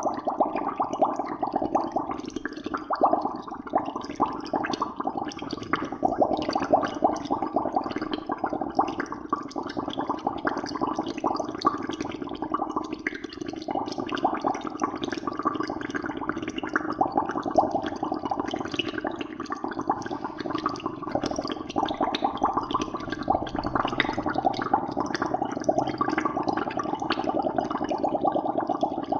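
Water bubbling steadily: a dense, continuous stream of small bubbles gurgling and popping rapidly, with no let-up.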